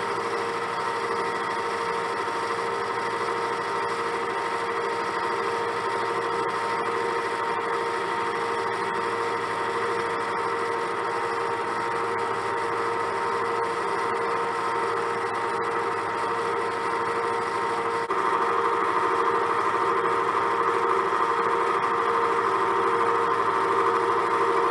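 Metal lathe running steadily with its chuck spinning, a steady mechanical whine over a rushing noise. About three quarters of the way in the sound steps up louder and stays there.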